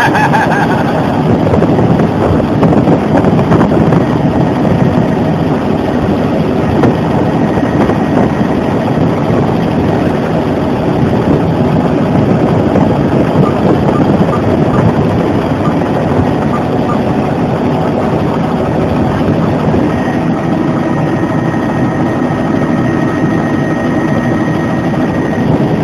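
Bell Jet Ranger helicopter in flight, heard from inside the cabin: the turboshaft engine and rotor make a loud, steady din with a faint thin whine that stands out more near the end.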